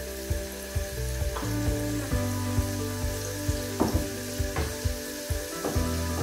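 Chopped garlic, ginger and whole spices frying in hot rapeseed oil in a pot, sizzling with scattered small pops. Soft background music with held notes plays underneath.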